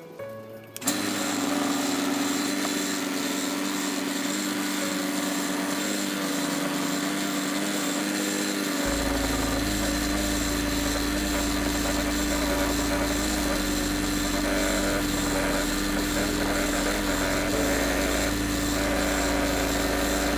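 Wood lathe switched on about a second in and running steadily with a constant motor hum, a tool working the spinning wooden bowl blank; a deeper rumble joins about nine seconds in.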